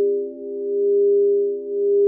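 Singing bowls sounding in a sustained, overlapping drone of several pure tones, the sound pulsing with two slow dips in loudness.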